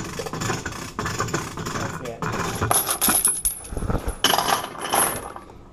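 Bolt cutters being forced onto a hardened steel padlock shackle: a run of irregular metallic clinks and scrapes as the jaws bite and shift on the steel.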